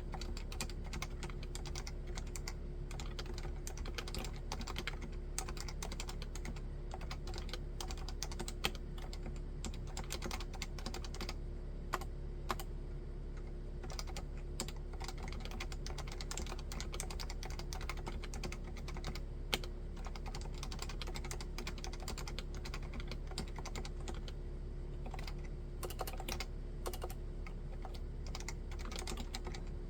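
Typing on a Leopold FC660C, a 65% keyboard with standard (non-silent) Topre electro-capacitive switches: rapid, continuous keystrokes, with a few louder single strikes standing out about 9, 12 and 20 seconds in.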